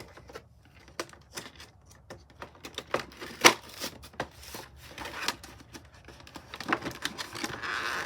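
Plastic toy packaging being handled and pried apart: irregular clicks and snaps, with the sharpest snap about halfway through and a stretch of crinkling near the end.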